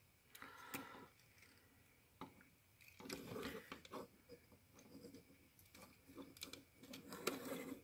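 Faint handling of a plastic mech action figure as its limbs are twisted into a pose: scattered soft clicks from its ratcheting joints and plastic rubbing against plastic.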